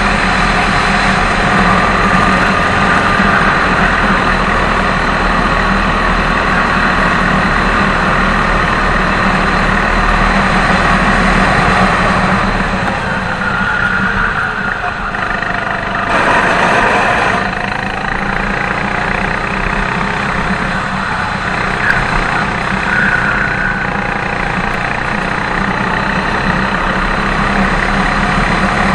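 Go-kart engine heard from the driver's seat, running hard down the straight. Its sound drops off through a slow corner around the middle, then climbs in pitch as the kart accelerates out.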